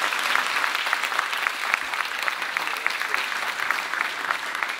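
Audience applauding: the dense, even clatter of many people clapping.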